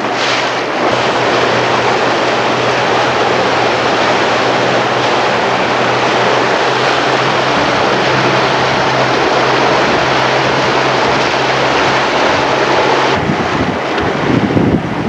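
Motorboat engine running with a steady hum under heavy wind and water noise, the hum cutting off about thirteen seconds in.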